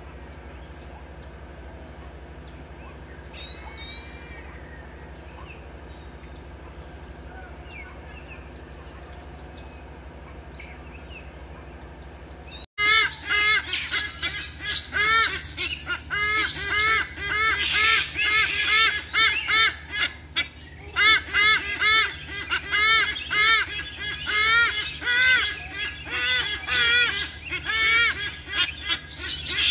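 A faint steady hum with one short high bird chirp, then, after an abrupt cut partway through, a white-bellied sea eagle calling loudly in a rapid series of goose-like honking notes, several a second, that keeps going.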